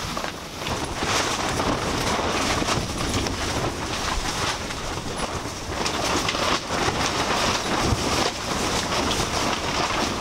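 Strong desert wind gusting hard, rushing and buffeting against the microphone in uneven surges.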